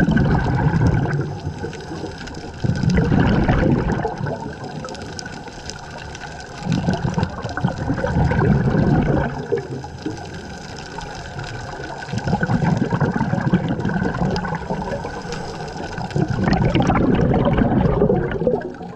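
Scuba diver breathing through a regulator underwater: each exhalation releases a rushing burst of bubbles. The bursts come about every four to five seconds, five times, with quieter stretches between them.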